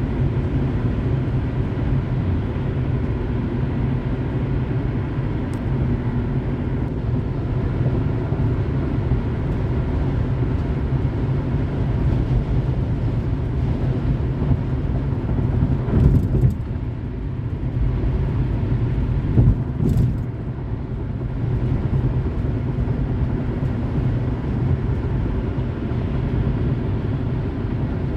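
Car driving on a highway: a steady low rumble of tyres on the road and the engine. A little past the middle, two brief louder swells of noise come about four seconds apart.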